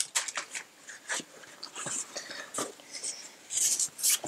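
Handling noise as a rolled StackMat is taken out of its cylindrical packaging: scattered light clicks and taps, with a brief rustle of the mat and wrapping about three and a half seconds in.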